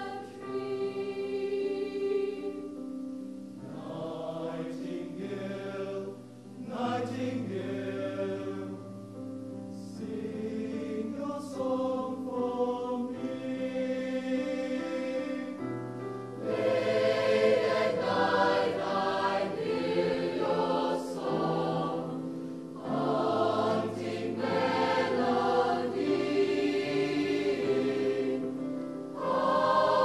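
Mixed choir of men's and women's voices singing in sustained chords, accompanied by a digital piano. It swells louder about halfway through, and again near the end.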